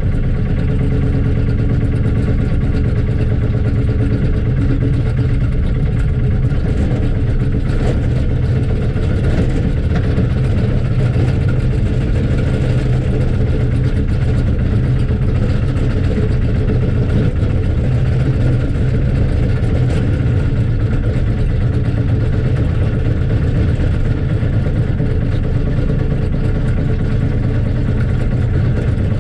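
Lister SR1 single-cylinder diesel engine of a 1979 Smalley 5 excavator running steadily while the machine digs, heard from inside the cab.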